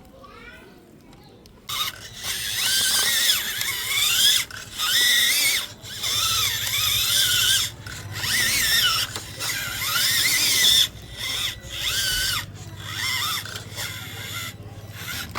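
Small electric drive motors and plastic gearbox of a remote-control toy bulldozer whining, the pitch rising and falling in short bursts with brief breaks as the controls are worked.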